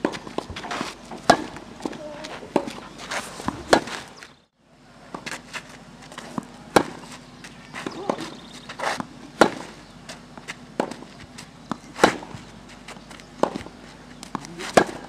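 Tennis ball struck by racquets in a baseline rally on a clay court: sharp pops every second or two, some louder and some fainter, with shoes scuffing on the clay between shots. The sound cuts out for about half a second after about four seconds.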